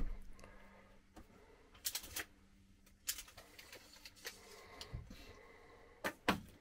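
Quiet small-room tone with a faint steady low hum and a few scattered light knocks and clicks, a pair about two seconds in and a sharper pair near the end.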